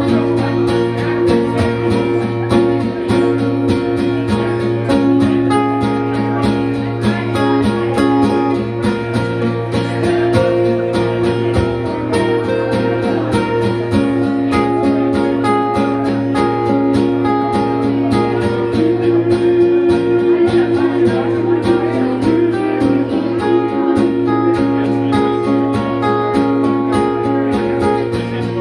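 Two guitars played live on stage, an acoustic guitar strummed steadily under held melody notes from the second guitar.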